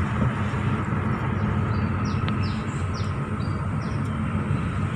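Car cabin noise while driving: a steady low engine and road hum. In the middle a bird gives a quick series of about six short, falling chirps.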